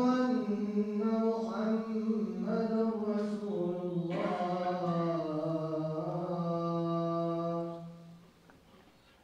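A single man's voice chanting one long, drawn-out melismatic phrase, the pitch held and slowly sinking, ending about eight seconds in.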